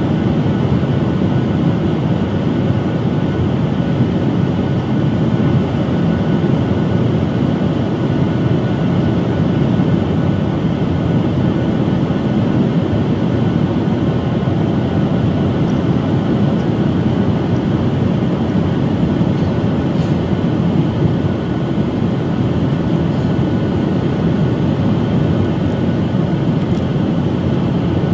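Steady in-flight cabin noise of a Boeing 737 MAX 9 in flight: its CFM LEAP-1B turbofan engines and the air rushing past the fuselage, heard from a window seat, a deep even rumble with a faint steady high whine.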